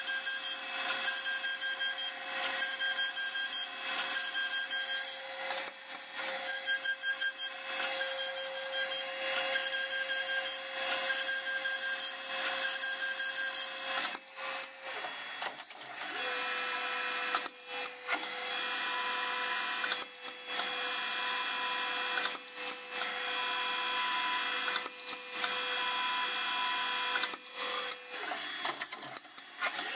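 Hurco 5-axis CNC mill's end mill cutting a metal die blank over a steady spindle whine. For about the first half the cut comes in quick repeated pulses. After a short break about halfway through it goes on more evenly.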